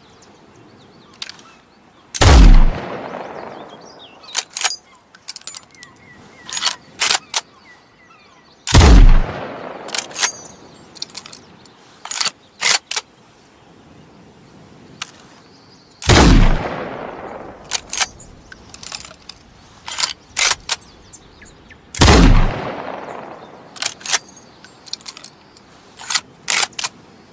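Chassepot bolt-action breech-loading rifle firing four single shots about six to seven seconds apart, each with a long fading echo. Between the shots come quick runs of sharp metallic clicks as the bolt is worked to reload.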